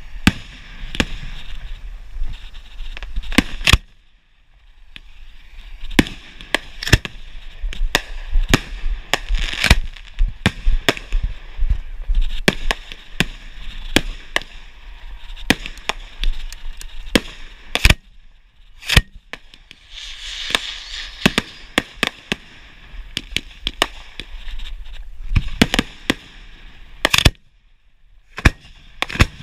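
Fireworks being fired at close range: an irregular run of sharp bangs, at times several a second, over a steady hiss. There are brief lulls about four seconds in and again near the end.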